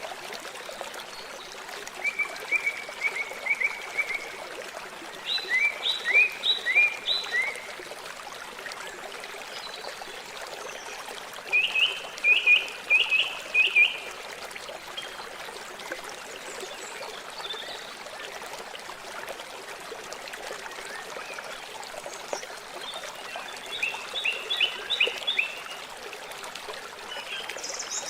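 River water flowing steadily, an even rushing hiss. Four times, a calling animal gives a short run of quick high chirps over it.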